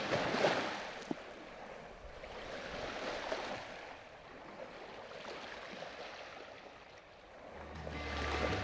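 Rushing, washing water noise that swells and eases in slow surges, like sea water along a boat's hull. Music fades in near the end.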